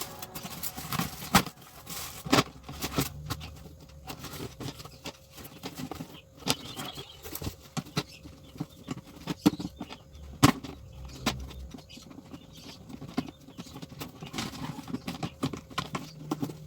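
Irregular sharp clicks and knocks, like things being handled and set down, with a faint steady hum underneath.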